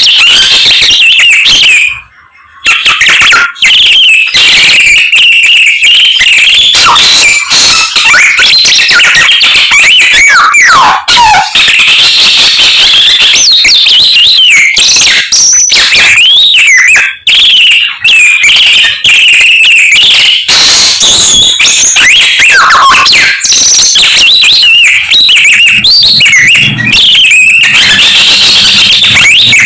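Samyong songbird singing loudly and continuously, a rapid run of whistles, trills and sliding notes that mimics the songs of other birds. There is a brief break about two seconds in.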